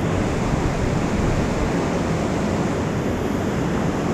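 Steady rush of fast river water running over a low concrete spillway.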